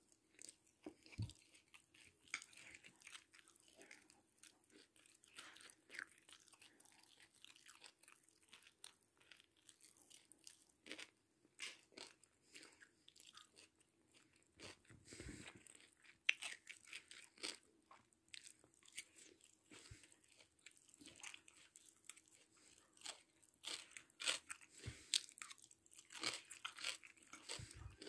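Faint chewing and crunching of a person eating biryani with cashew nuts: irregular small crunches and clicks, a little busier near the end.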